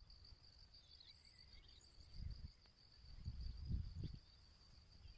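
Faint meadow ambience: a steady high-pitched insect trill with a few scattered bird chirps, and low gusts of wind buffeting the microphone about two seconds in and again between three and four seconds.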